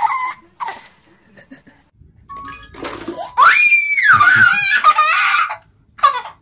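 A young child shrieking with delight and laughing. There are short squeals near the start, then a long, loud high squeal about three seconds in that rises, holds and falls away.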